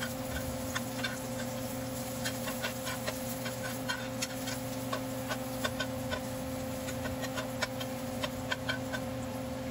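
Chopped garlic sautéing in hot oil in a frying pan, with many small irregular pops and crackles as it is stirred with a metal spoon, over a steady low hum.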